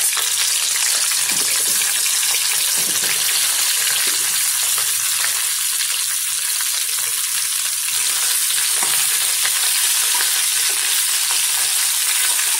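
Cut okra frying in hot oil in a steel pan: a steady sizzle while more pieces go in and are stirred.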